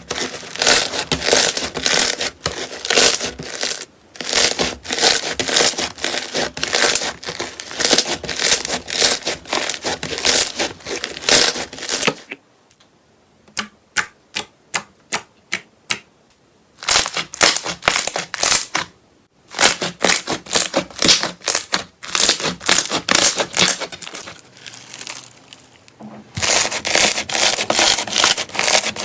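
Slime being squeezed and pressed by hand, giving dense crackling and popping clicks. Through a quieter stretch in the middle it thins to a short string of separate sharp pops, then the dense crackling returns.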